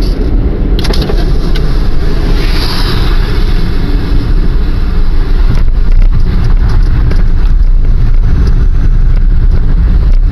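Car interior driving noise: a steady low rumble of engine and tyres, loud on the in-car microphone, as the car rolls slowly.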